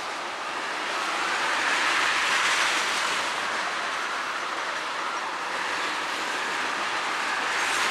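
Freight train tank cars rolling past at speed: a steady, loud rush of steel wheels on rail.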